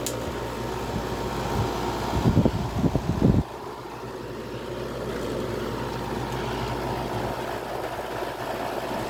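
Gold Star window air conditioner running with a steady fan and blower hum. A few loud low knocks and rumbles come between about two and three and a half seconds in.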